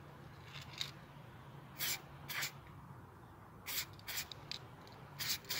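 Aerosol spray-paint can giving several short hissing bursts, each well under a second, spaced a second or so apart, as a light coat goes onto a plastic part.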